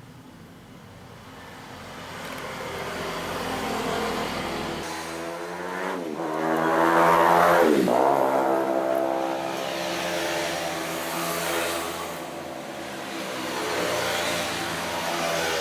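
Sewing machine running under power, its speed swelling and easing, with two sharp brief slow-downs in pitch in the middle.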